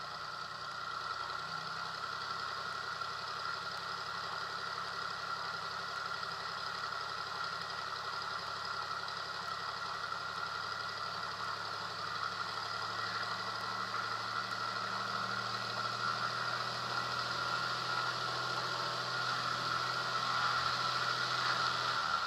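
Cessna T210's turbocharged six-cylinder engine running steadily at low taxi power, heard close from a camera on the airplane, getting a little louder near the end.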